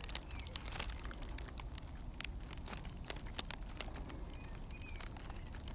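Faint rustling and scattered small clicks as grass and clothing brush against a handheld phone held close to the ground, with two faint short chirps a little over four seconds in.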